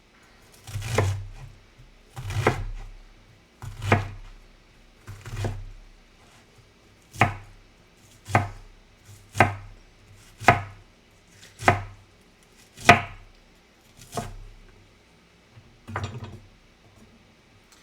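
Knife chopping food on a cutting board, about a dozen slow strokes roughly a second apart. The first few strokes are longer and duller, and the later ones are sharper.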